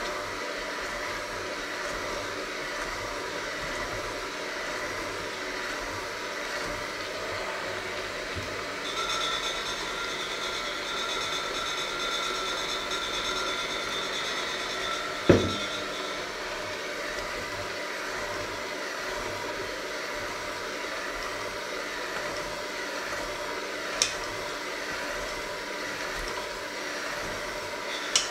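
Electric hand mixer running steadily, its beaters working flour and water into a dough in a stainless steel bowl. A higher whine joins in for several seconds in the middle. There is a sharp knock about halfway through and a click or two near the end.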